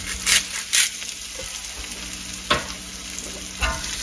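Onions sizzling in butter in a nonstick frying pan, with three short grinding strokes of a salt grinder in the first second. Two short scrapes of the pan on the gas burner grate as it is shaken near the end.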